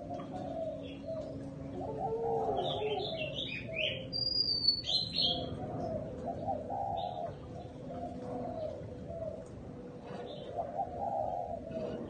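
Spotted dove cooing repeatedly in low, rounded phrases. Another small bird chirps a quick run of high notes a few seconds in.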